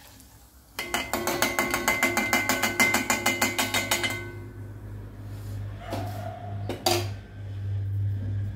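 Steel slotted ladle tapped rapidly against the rim of a stainless steel kadai, about seven quick ringing metallic taps a second for some three seconds, shaking the oil off a fried poori. Two single knocks of metal on the pan follow near the end.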